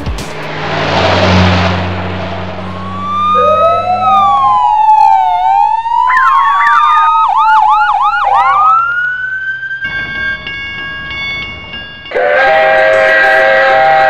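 Added sound effects: a whoosh, then several siren-like tones gliding up and down over one another, a quick run of short swooping tones, and near the end a loud held chord like a horn blast.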